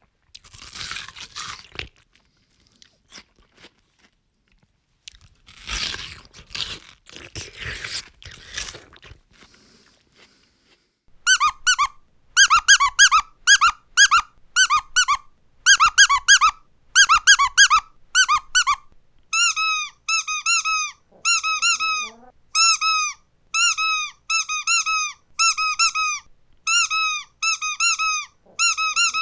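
Crunchy chewing, heard twice in the first nine seconds. Then a squeaky toy is squeezed over and over in quick runs of squeaks. From about twenty seconds in, the squeaks turn shorter, each one dropping in pitch, at a few a second.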